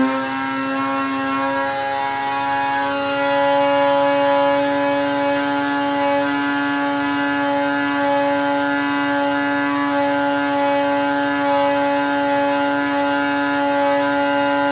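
Arctic Cat Alpha-based snowmobile's two-stroke twin, fitted with a Bikeman 900 big-bore kit, running at wide open throttle under load on a dyno. It settles in the first couple of seconds, then holds at peak RPM with a steady, high-pitched engine note.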